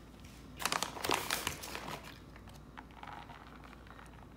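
Plastic bag of grated cheese crinkling as it is handled for about a second, with quieter rustling a couple of seconds later.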